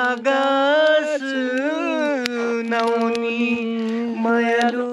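A man singing a Garhwali folk song unaccompanied, drawing out long held notes that bend and slide between pitches, with a few sharp clicks.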